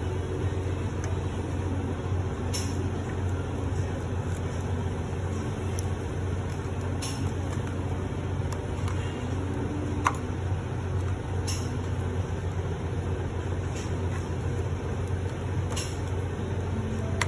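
Heavy truck's diesel engine idling steadily, a low even hum, with a few faint sharp clicks spread through it.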